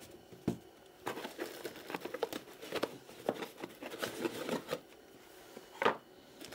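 Cardboard box and foam packing insert being handled: a run of small scratches, clicks and rustles as the foam is pried out, with one louder, sharper rustle near the end.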